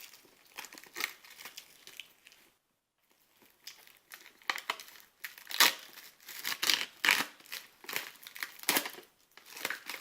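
Plastic shrink wrap crinkling and tearing as it is pulled off a disc box set, in a run of sharp crackles with a short pause between two and four seconds in.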